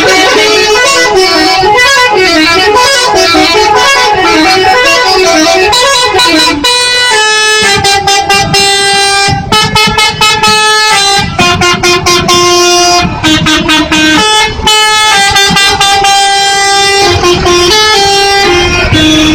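Garuda Mas bus's telolet horn, a multi-tone musical bus horn, playing a tune: a warbling run of quickly changing notes for the first six or seven seconds, then a string of held chords in short blasts with brief gaps between them.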